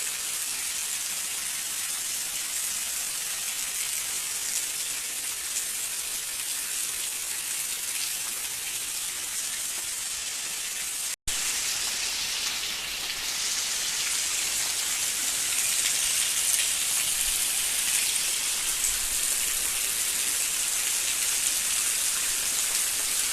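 Steady heavy rain falling, an even hiss of rain on surfaces. It breaks off for an instant about eleven seconds in, then goes on slightly louder.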